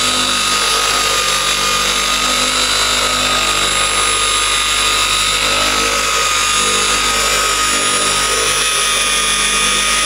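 Small cordless polisher with a 3-inch pad running steadily on car paint, working in a heavy cutting compound: an even motor whine with one high tone that stays nearly level.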